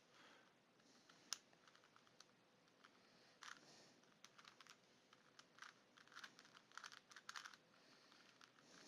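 Faint, irregular plastic clicking of a Rubik's Cube's layers being turned by hand, in quick clusters busiest in the second half, with one sharper click about a second in.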